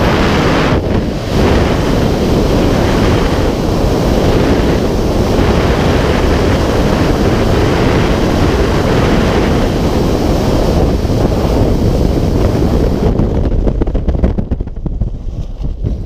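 Freefall wind rushing over the camera's microphone in a loud, steady roar. Near the end the roar thins and drops as the parachute opens and the fall slows.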